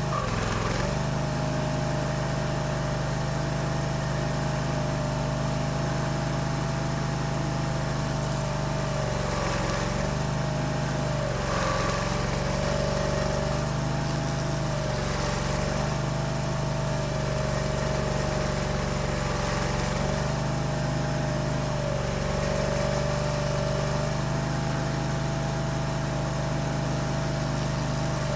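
Barreto E30SGB stump grinder's engine running steadily at high speed, its pitch dipping briefly and recovering every few seconds as the cutter wheel takes load.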